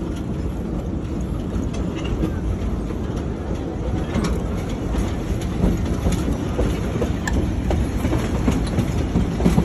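Open passenger car of a narrow-gauge railroad rolling along the track: a steady low rumble from the wheels and car, with occasional sharp clacks.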